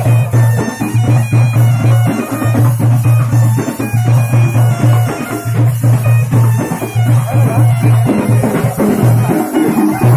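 Village folk dance music: barrel drums beating a fast, busy rhythm under a reed-like wind instrument playing a wavering melody. A low steady drone breaks off about once a second.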